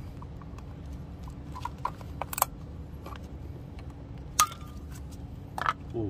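Sharp clicks and snips of hand cutters working through the foil-wrapped insulation around an air-conditioner compressor's terminal cover. There is a quick cluster about two seconds in, a single sharp snap after four seconds and a short crinkling burst near the end, over a steady low hum.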